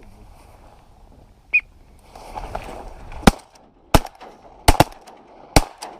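Volley of shotgun blasts at flying ducks: five sharp shots over about two and a half seconds, two of them nearly together, from more than one hunter firing. A short, high squeak comes about one and a half seconds in, before the shooting.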